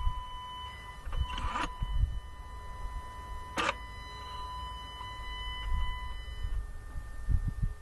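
Electric flap actuator on an Opel Z22YH twinport intake manifold squealing with a steady high whine while it holds the flaps slightly open. About a second and a half in, and again at about three and a half seconds, it runs the flaps shut and open in a quick whirring sweep. The whine cuts off about six seconds in as the motor pushes the linkage with full force. On the open stroke the linkage bar does not travel all the way, a sign of the worn, sticking flap mechanism.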